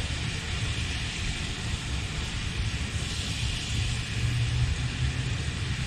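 Butter and pork-belly fat sizzling steadily in a frying pan with shrimp in it. The burner is off and the pan is starting to cool. A steady low rumble runs underneath.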